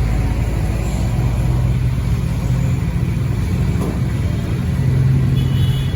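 A motor vehicle engine running close by: a steady low rumble that swells about a second in and again near the end.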